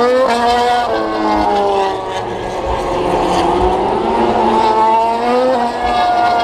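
Several Grand Prix racing motorcycle engines at high revs, their pitch climbing and then dropping sharply again and again as they shift up through the gears.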